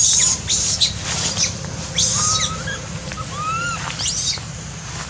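Baby long-tailed macaques calling, a run of about six short calls: high thin screeches mixed with short arching coos. These are the cries of infants separated from their mothers.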